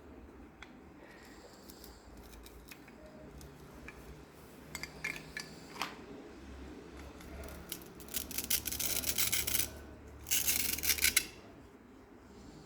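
Toy packaging being handled and opened: a few scattered small clicks, then two bursts of rapid crackling near the end, each about a second long.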